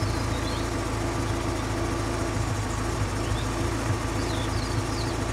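Rover 220 GSi Turbo's turbocharged 2.0-litre engine idling steadily. Its idle manifold pressure reads 31 kPa, just under Testbook's 33 kPa lower limit.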